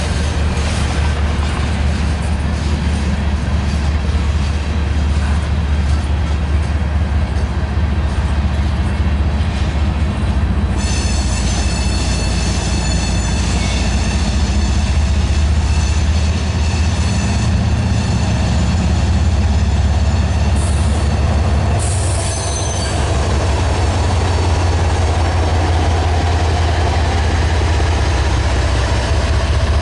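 Freight cars rolling past on the rails with a steady low rumble and wheel noise, with brief high wheel squeals about eleven seconds in and again a little past twenty seconds. Near the end a mid-train BNSF diesel locomotive (distributed power unit) comes by, its engine drone joining the wheel noise.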